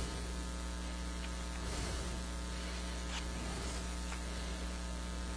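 Steady electrical mains hum, with a few faint, brief ticks.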